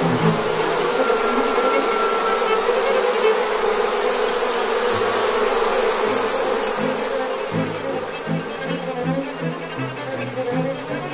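Honeybee swarm buzzing: a dense, steady drone of many bees in the air while the swarm is being hived.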